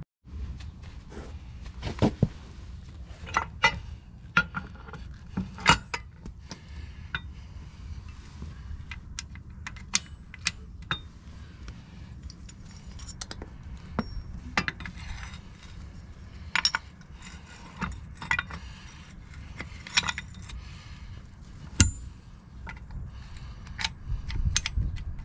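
Scattered metal clinks and knocks of a steel lower lift arm, its pivot pin and fittings being handled and fitted by hand onto a John Deere 4520's three-point linkage, over a steady low rumble.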